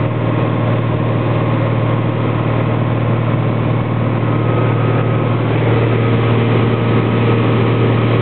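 Light aircraft's piston engine and propeller droning steadily, heard from inside the cockpit, growing a little louder about halfway through.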